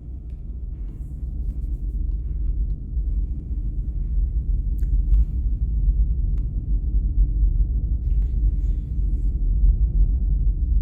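A steady low rumble with a few faint, scattered clicks.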